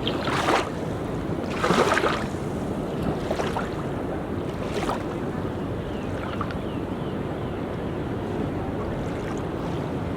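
Sea waves washing onto a beach in a steady wash, with splashing surges about half a second and two seconds in, the second the loudest, and smaller ones after.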